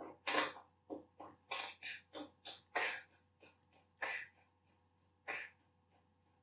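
A man making short, breathy vocal sound effects with his mouth, an irregular string of puffs and hisses in a beatbox-like rhythm, which stops about five seconds in.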